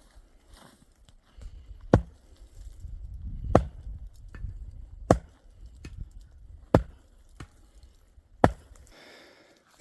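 Dry wood being chopped: five sharp blows, evenly spaced about a second and a half apart.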